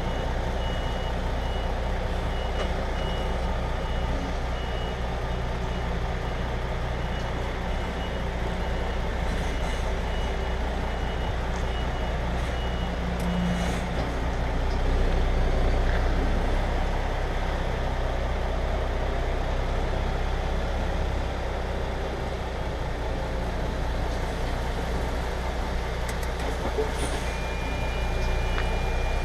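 Vehicle reversing alarm sounding a steady run of high beeps over a diesel engine idling. The beeping stops about halfway and starts again near the end.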